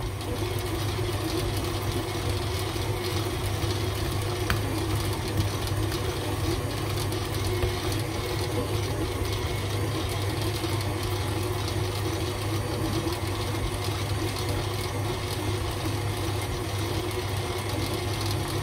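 KitchenAid Ultra Power Plus stand mixer running steadily, its motor humming as it kneads a sticky, buttery bread dough in the steel bowl.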